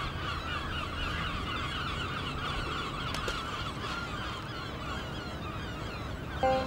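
A flock of birds calling continuously in a dense chatter over a low steady hum. Music with held notes comes in just before the end.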